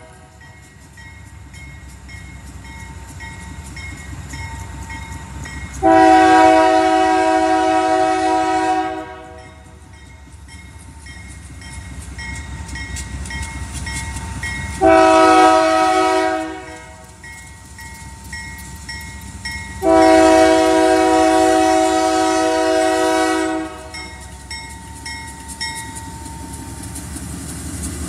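Diesel freight locomotive horn sounding a grade-crossing signal: a long blast, a short one, then another long one, with a crossing bell ringing about twice a second in between. The train's rumble builds as the locomotives come past near the end.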